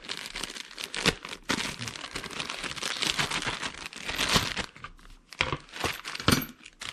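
A small plastic bag of oscillating multi-tool blades being torn open and handled, with plastic crinkling and crackling unevenly throughout.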